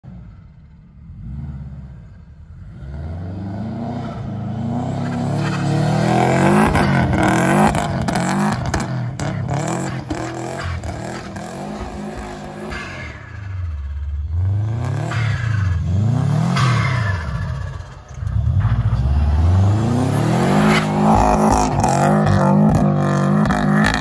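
1991 Subaru Legacy Turbo's turbocharged flat-four engine revving hard and easing off over and over as the car slides through donuts in snow, its pitch rising and falling in long sweeps. It starts faint, then stays loud, with a brief drop in the revs about three quarters of the way through.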